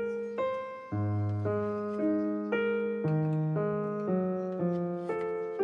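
Background piano music: a gentle melody of single notes over held bass notes, about two notes a second, each ringing and fading.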